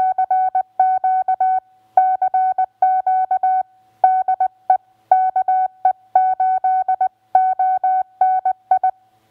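Morse code: one steady mid-pitched beep keyed on and off in quick groups of dots and dashes, sent as a continuous-wave (CW) tone.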